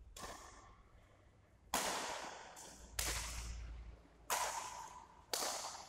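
Badminton rackets striking a shuttlecock during a doubles rally: five sharp hits, each a second or so apart, every one ringing out in a reverberant hall.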